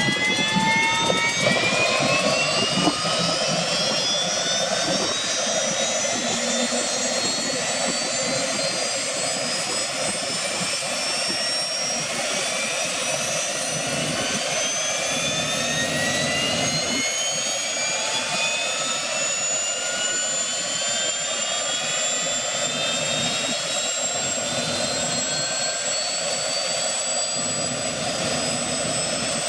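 Bell 206B-III JetRanger's Allison 250 turboshaft engine starting up: a turbine whine that climbs steadily in pitch as the engine spools up, levelling off near the end.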